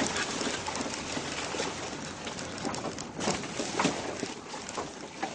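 Off-road vehicle lurching along a rutted, muddy dirt track: a steady rumble of running noise broken by many short knocks and rattles as it bounces over the ruts.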